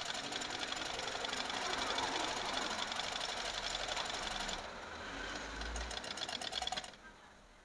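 Butterfly sewing machine stitching fast through fabric: a rapid, even clatter of needle strokes that eases off about four and a half seconds in and stops about seven seconds in. It is a test seam after the hook was set closer to the needle to cure skipped stitches.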